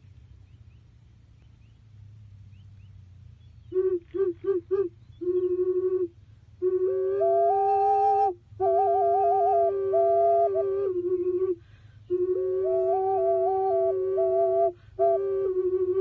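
Red clay double ocarina playing two notes at once: a held lower note under a higher melody that steps up and down, with a trill in the middle. It comes in about four seconds in with four short notes, then plays longer phrases separated by brief pauses.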